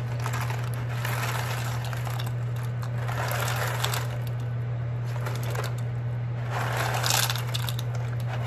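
Dry pasta rattling out of a cardboard box and dropping into a pot of boiling water, in three pours, over a steady low hum.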